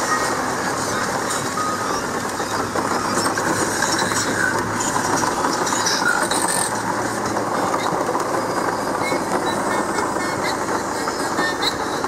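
Land Rover Defender driving in a heavy rainstorm, heard from inside the cab: a steady mix of engine and road noise, with scattered ticks of rain striking the windscreen and body.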